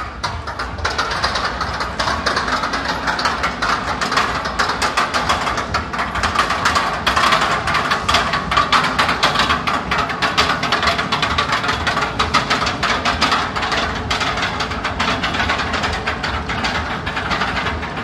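Rollercoaster cars being pulled up the lift hill, clacking rapidly and steadily along the track.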